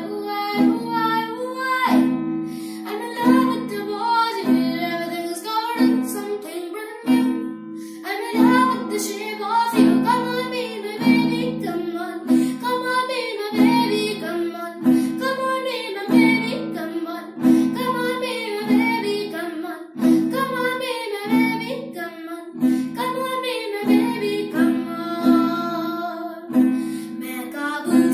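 Acoustic guitar strummed in a steady rhythm while a child sings along.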